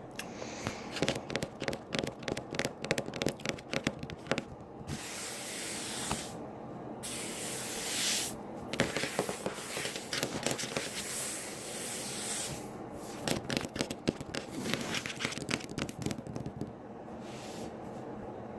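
Wet gurgling and crackling noises right at the microphone: a rapid, irregular run of wet clicks broken by several hissing, spray-like bursts of a second or two.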